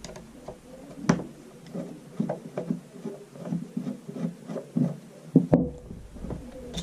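Irregular small metallic clicks and scrapes of a screw being worked out of a Marlin 336 lever-action rifle: the lever screw, removed to take the rifle apart. A sharper knock comes about a second in and another shortly before the end.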